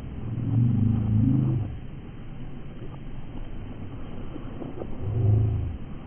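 A low engine hum that swells twice, each time for a second or so, rising and falling in pitch like a motor being revved.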